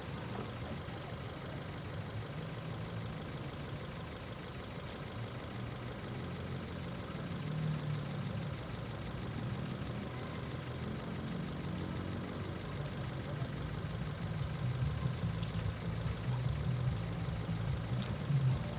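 Low, muffled rumble from the parked Ford Fiesta, heard from outside the car. It grows louder and more uneven from about a third of the way in.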